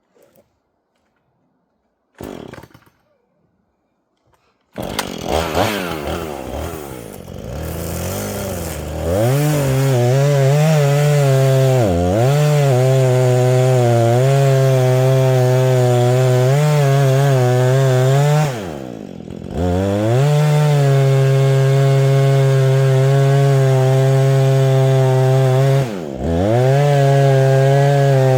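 Two-stroke chainsaw starting about five seconds in after a short noisy burst, revving and settling, then held at high revs from about nine seconds, most likely cutting into the tree. The revs drop off and pick up again briefly three times.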